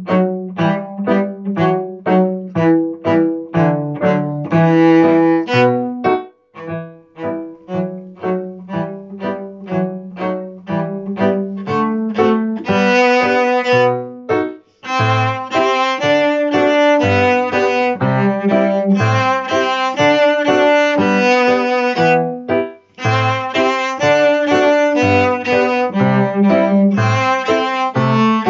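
Cello played with the bow, with piano accompaniment, in a march-like tune. For about the first twelve seconds the notes are short and detached, two or three a second. After that the notes become longer and fuller, with brief pauses between phrases.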